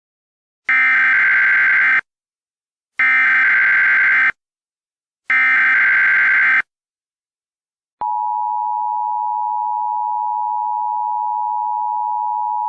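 Emergency Alert System tones: three SAME header data bursts, each just over a second long with short gaps between, then about eight seconds in the steady two-tone attention signal begins.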